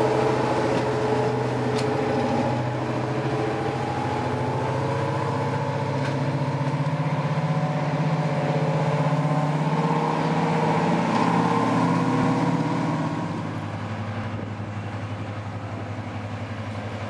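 Class 55 Deltic diesel locomotive's Napier Deltic two-stroke engines running with a steady droning note; about thirteen seconds in the sound drops and settles to a lower, steadier idle.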